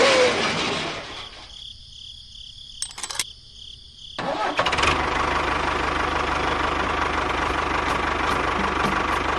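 Two clicks, then about four seconds in a vehicle motor starts and runs steadily, with a low rapid chugging and a steady whine.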